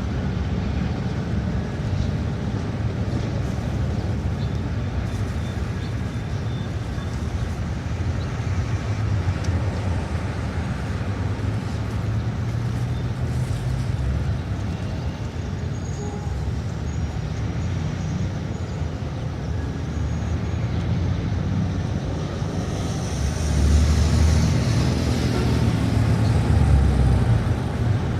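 City street traffic: a steady rumble of cars, buses and trucks running past. Near the end a heavy vehicle passes close, louder, with a hiss over its engine.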